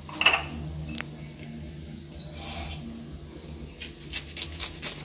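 Kitchen knife handled on a granite counter and cutting into a whole orange: a single click about a second in, then a run of quick light clicks and taps near the end. A short hiss comes about halfway, over a faint low hum.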